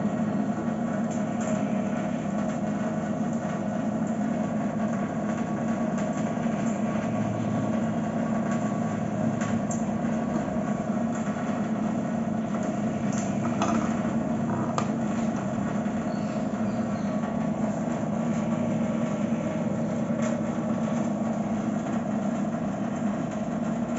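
Aquaguard Aura RO water purifier's booster pump running with a steady hum, with a few light clicks around the middle.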